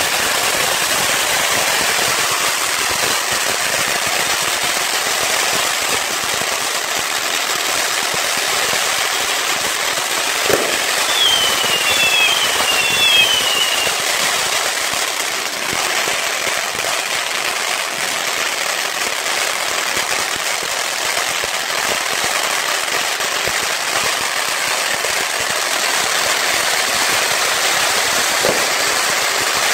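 Ground firework fountain spraying sparks, with a steady hiss and dense crackling. A couple of sharper bangs stand out, and three short falling whistles sound in the middle.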